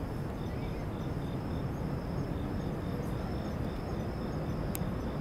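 Outdoor night ambience on a city waterfront: a steady low rumble of distant city and wind noise, with an insect chirping faintly in an even rhythm of about two to three chirps a second. A single sharp click sounds near the end.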